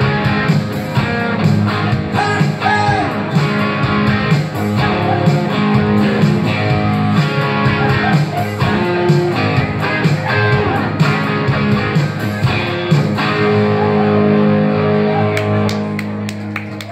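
Live rock music from two guitars with no singing: a distorted electric guitar playing bending lead lines over a strummed acoustic-electric guitar. The playing thins and drops in level near the end as the song winds down.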